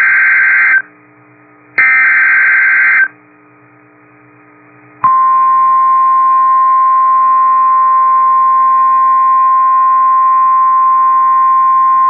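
NOAA Weather Radio Emergency Alert System signal: two harsh, buzzy bursts of SAME digital header data, about a second apart, announcing a severe thunderstorm warning. After a short pause, the steady single-pitch 1050 Hz warning alarm tone comes on about 5 seconds in and holds. It is heard through a weather radio receiver's speaker, with a faint hum in the gap.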